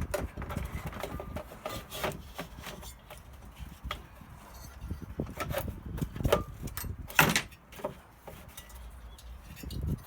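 Hard plastic diesel-heater parts clicking, knocking and rubbing as they are pushed back into their housing, with a louder scrape about seven seconds in as the part catches on something.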